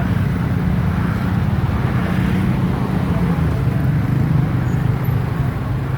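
Steady low rumble of a running engine, unbroken throughout.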